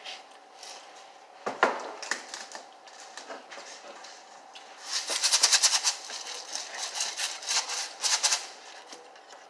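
Sprinkles rattling as a container of them is shaken in quick bursts from about five seconds in, after a single sharp knock about a second and a half in.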